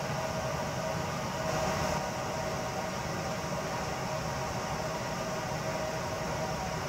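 Steady outdoor background hiss and hum, with nothing rising out of it; the far-off train is not picked out.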